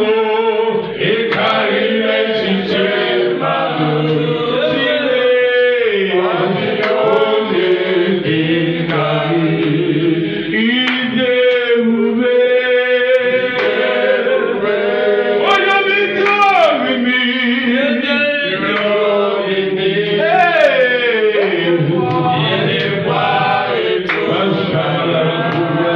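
Man leading a gospel praise song, singing continuously into a handheld microphone with sustained tones held under the melody.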